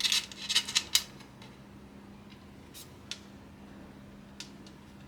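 Computer parts and hardware being handled during assembly: a quick run of sharp clicks and rattles in the first second, then a few scattered single clicks, over a faint steady hum.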